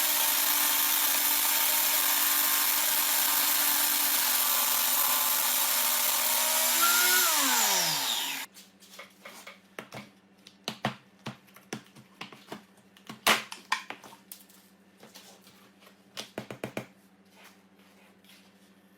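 Motor of a homemade corn grinder running steadily with a high hiss, then switched off about seven seconds in, its pitch falling as it spins down to a stop. Afterwards scattered light clicks and knocks.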